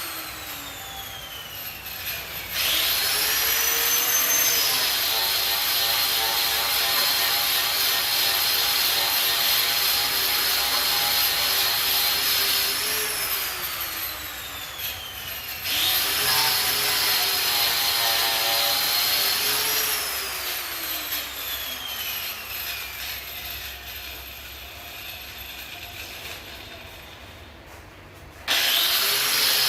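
Angle grinder cleaning rust scale off a steel welding table, run in bursts. Three times its motor whine rises sharply as it spins up, then runs steady over a grinding hiss. In between, the whine glides down as the grinder winds down, once slowly over several seconds.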